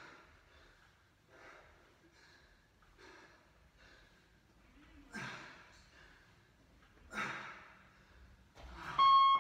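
A man breathing hard through crunches, with sharp exhalations every second or two, the strongest about seven seconds in. Near the end a workout interval timer gives one loud, high beep, the signal to change exercise.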